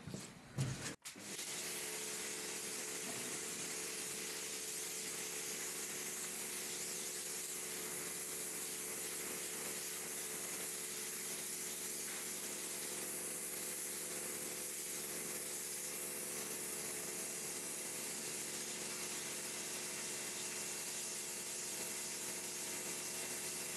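Small electric pressure washer running steadily: the pump's constant hum under the hiss of the water jet on stone paving slabs. A brief, louder noise comes in the first second, before it cuts to the steady spray.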